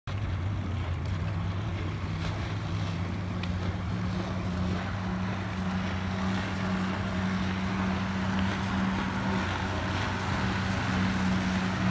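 Motorboat engine running as a steady drone, with wind and water noise.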